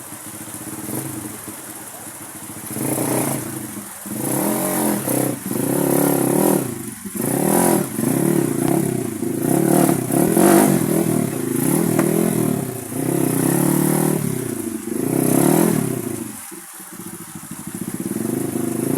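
Honda XRM underbone motorcycle's single-cylinder engine revved again and again in short bursts, its pitch rising and falling about once a second, then easing off briefly near the end before running steadily again.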